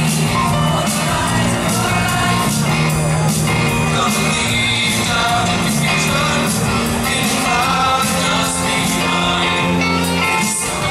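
High school show choir singing over loud pop-rock instrumental accompaniment with a steady bass line.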